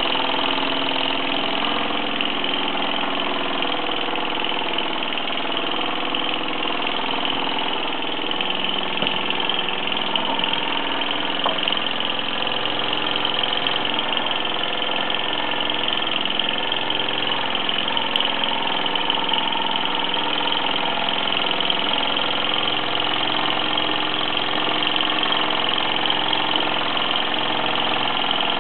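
1948 Mamod SE1 toy steam engine running steadily under steam, driving the belts, pulleys and line shafts of a small Meccano model workshop: an even, continuous whirring with a hiss over it.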